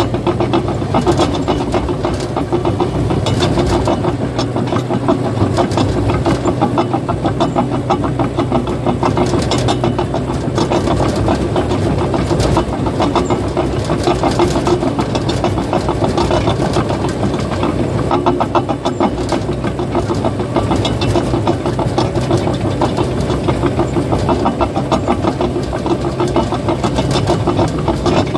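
Caterpillar bulldozer's diesel engine running steadily, with a rapid, continuous clatter from its steel tracks.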